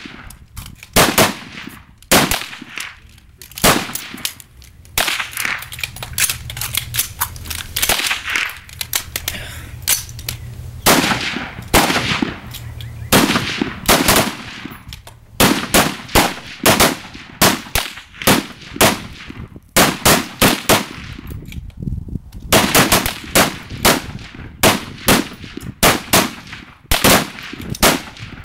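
Several rifles on a firing line shooting timed rapid fire, 10 shots in 60 seconds with a magazine change. Sharp shots come from different shooters, overlapping and irregularly spaced, with short lulls between clusters.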